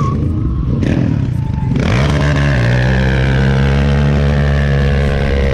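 Quad bike engine revving. The pitch climbs about two seconds in, then the engine is held at steady high revs.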